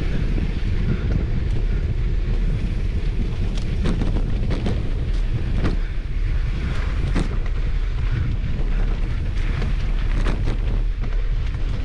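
Wind buffeting the microphone of a camera on a mountain bike riding fast down a dirt trail, a steady low rumble with scattered sharp clicks and knocks from the bike rattling over the ground.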